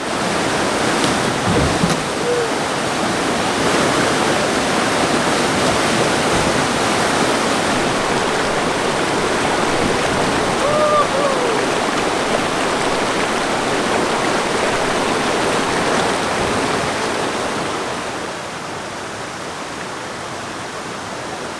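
River rapids rushing steadily and loudly, with a brief faint gliding call about halfway through; the rush eases a little near the end.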